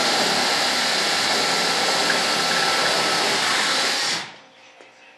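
An electric, motor-driven air tool runs with a steady rushing whir, then switches off about four seconds in.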